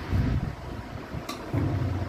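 Low rumbling noise on the microphone, swelling twice, with a single light clink of a metal serving spoon against a pan or plate about a second in.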